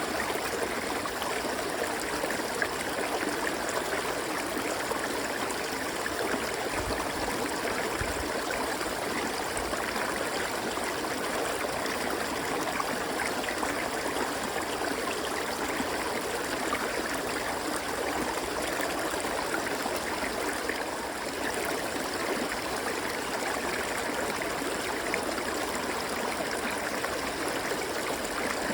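River water flowing over rocks, a steady rushing and babbling.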